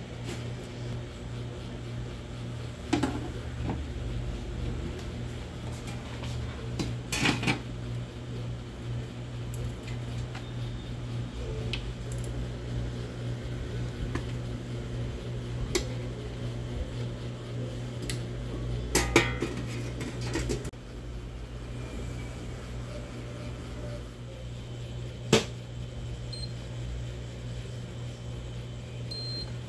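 Stainless-steel serving tongs clacking against steel topping trays as toppings are picked up, in a few scattered sharp clicks, the loudest about 25 seconds in, over a steady low hum.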